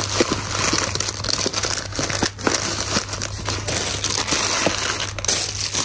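Packaging crinkling and rustling with small clicks and knocks, as squishy toys in their wrappings are handled and packed for an order.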